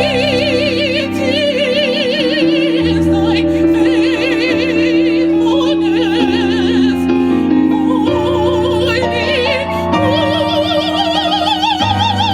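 Live gospel singing: long held, wordless notes with heavy vibrato, over sustained keyboard chords and low bass notes that change every couple of seconds.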